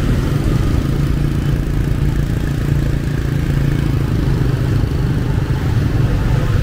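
Motorbike engine running steadily in dense street traffic, a constant low hum over a rumble.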